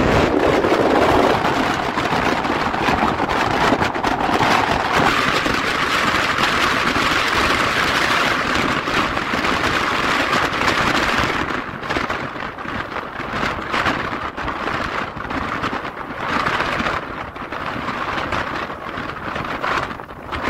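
Strong wind gusting over a fish pond and buffeting the microphone, with waves slapping on the water: a steady rushing noise, louder in the first half, that swells and eases after.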